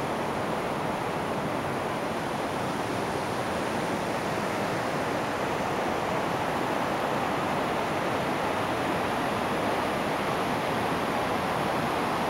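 River water rushing steadily, a constant hiss with no breaks, growing a little louder toward the end.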